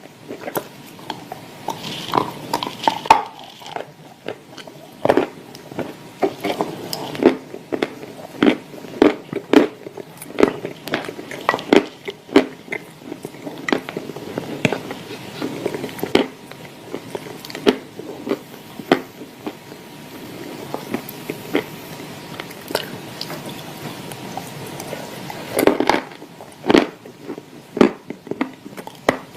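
Dry clay chunks with clay paste being bitten and chewed: a long run of irregular sharp crunches.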